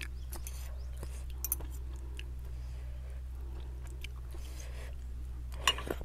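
Close chewing of a mouthful of pork and noodles, picked up by a clip-on microphone: soft wet chewing with scattered small mouth clicks, and a couple of louder smacks near the end. A steady low hum runs underneath.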